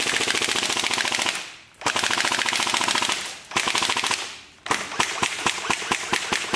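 Airsoft AUG rifle firing on full auto at a stack of cardboard: two rapid bursts of about a second and a half each, then from about five seconds in a looser string of separate shots.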